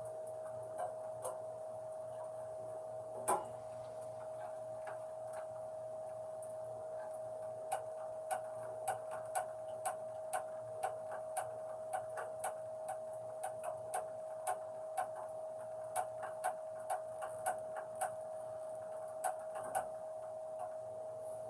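Light, regular ticking clicks, about two a second, over a steady high hum, with one sharper knock about three seconds in.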